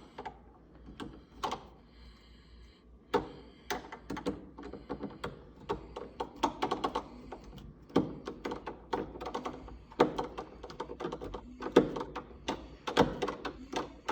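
Irregular clicks and light knocks of door-knob hardware being fitted and handled as the installation is finished.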